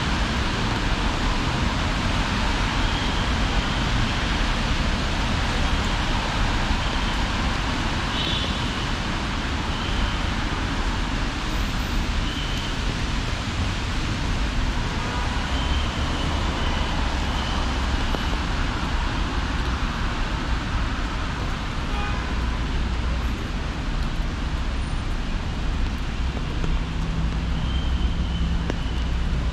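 Steady city street traffic: a constant low rumble of passing vehicles, with faint short high tones now and then.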